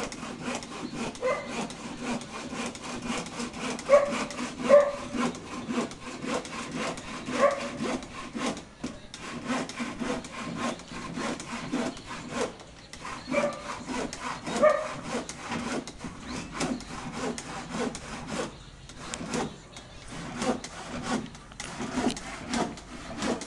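Handsaw cutting through a wooden board with a steady run of back-and-forth strokes.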